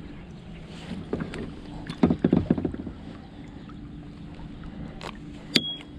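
Knocks and thumps on a kayak as a freshly landed pike is handled, with a loud cluster of them about two seconds in and a single sharp click near the end, over a steady low hum.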